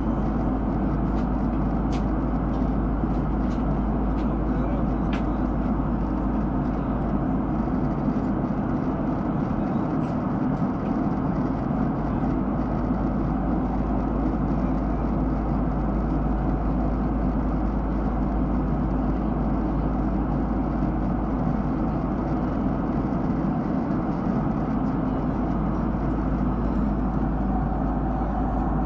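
Steady cabin noise of a Boeing 767-300ER in cruise flight: the twin jet engines and the airflow over the fuselage make an even, unbroken rush. A few faint ticks sound in the first few seconds.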